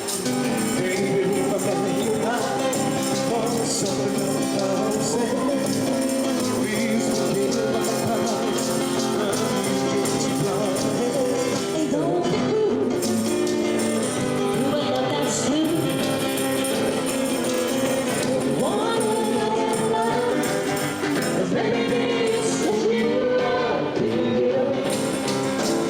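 Live band performing a song, a singer's voice over the instruments, with steady, continuous music.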